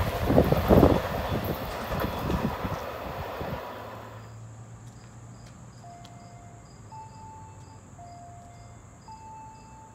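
Amtrak passenger train going away, its wheels clattering and the rumble fading out over about four seconds. Then a quiet stretch with a steady high insect drone, and from about six seconds in a slow run of single held musical notes.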